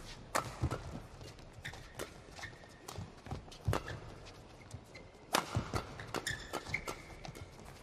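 Badminton rally: rackets striking the shuttlecock in a quick exchange of sharp hits, coming faster and louder after about five seconds, with shoes squeaking on the court.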